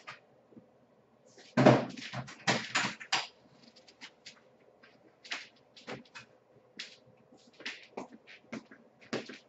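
Irregular clicks, knocks and rustles of things being handled on a workbench. There is a loud cluster of knocks about a second and a half in, then scattered lighter clicks.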